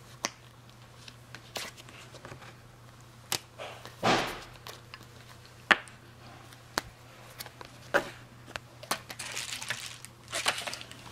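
Paper envelopes and sticker sheets handled by hand on a wooden table: scattered light taps and clicks with short bursts of paper rustling, a longer rustle about four seconds in and again near the end.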